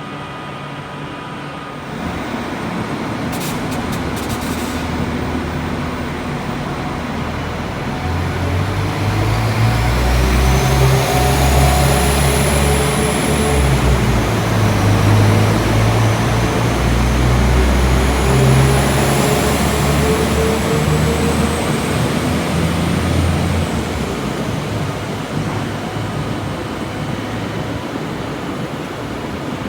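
A train passing close by. Its noise builds over the first several seconds and is loudest through the middle, with a deep drone and a whine that glides up and down, then it fades toward the end.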